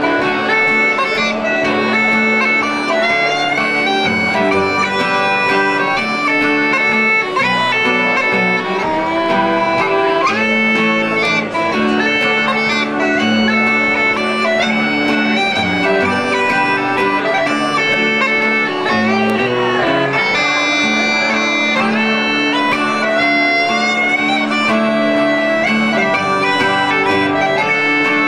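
Uilleann pipes playing a slow melody on the chanter over a steady drone.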